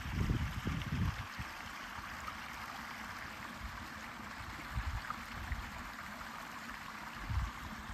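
Small upland beck running steadily over stones in a steep grassy gully. Low rumbling buffets of wind on the microphone come in the first second and twice more later.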